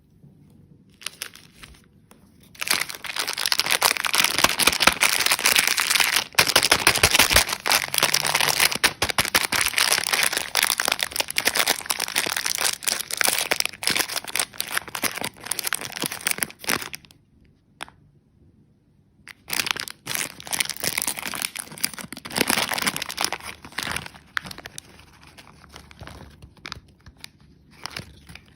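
Crinkling and tearing of a candy wrapper being unwrapped, in two long spells with a pause of about two seconds a little past halfway.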